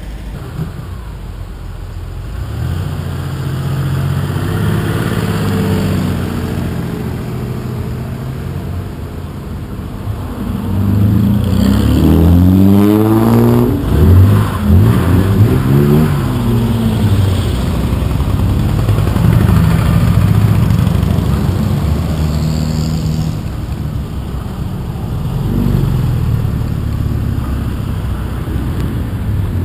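Classic cars driving past one after another as they pull out through a gateway, each engine swelling and fading as it goes by. About halfway through, a Jaguar E-Type passes closest and loudest, its engine revving up as it accelerates away.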